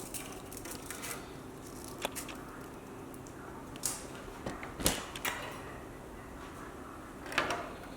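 Scattered small clicks and taps of hand tools handling parts on a workbench during soldering work on an LED display module, with a few sharper knocks about two, four, five and seven seconds in over a faint steady hum.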